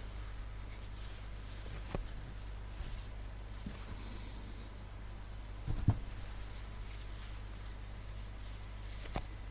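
Steady low hum with faint scattered clicks and short rustles, a slightly louder knock about six seconds in.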